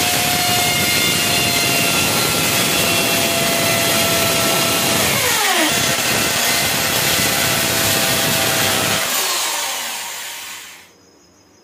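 Corded electric drill boring into a wall: a loud, steady grinding whine that dips in speed briefly about halfway through, then winds down and stops near the end.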